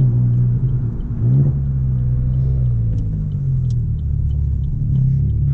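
Chevrolet Onix 1.0 turbo three-cylinder engine running through a downpipe and sport exhaust while driving: a steady low drone, with a brief rise in revs about a second in.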